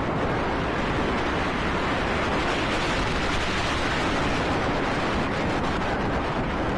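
Behemoth steel roller coaster train running at speed along its track, with a steady, loud rush of wind over the microphone.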